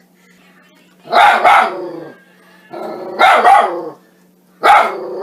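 Poodle barking in three agitated bouts, each a drawn-out yelping whine that breaks into two or three sharp barks.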